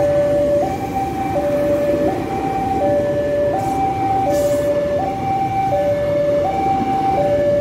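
Railway level-crossing warning signal sounding its alternating two-tone chime, high then low, each tone about three-quarters of a second, over the rumble of an ex-Tokyo Metro 6000-series electric commuter train rolling past close by.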